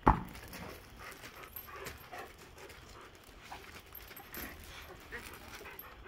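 A sharp thump as a dog leaps and strikes a tetherball, followed by scattered light scuffs and taps of dogs' paws on gravel as they jump and land.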